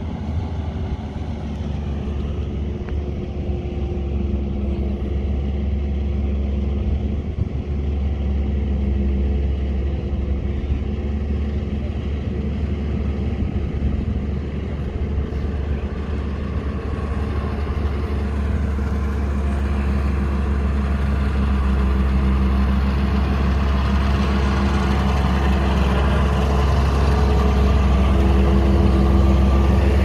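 Motor grader's diesel engine running steadily under load as it works the road, getting gradually louder as the machine draws near and passes close by near the end.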